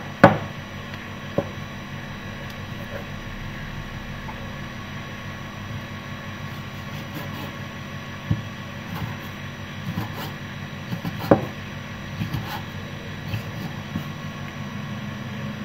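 A cleaver slicing raw beef on a round wooden chopping board, the blade knocking on the board now and then at irregular intervals, the loudest knock at the very start. A steady hum runs underneath throughout.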